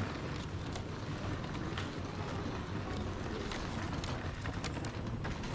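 Steady running noise inside the cabin of a Tobu Spacia X limited express train in motion: a low rumble with faint, scattered clicks.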